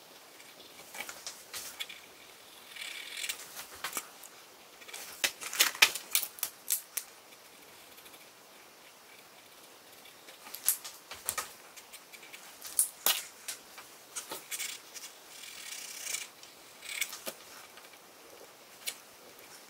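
Pencil and marker strokes on drawing paper: clusters of quick, sharp scratches with a few longer scratchy shading passes.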